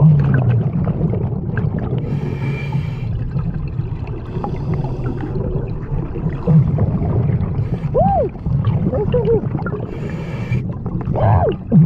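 Scuba diver breathing through a regulator underwater: a rumble and gurgle of exhaled bubbles, broken by a hiss of inhalation about two seconds in and again about ten seconds in. A few short squeaky pitch glides come near the end.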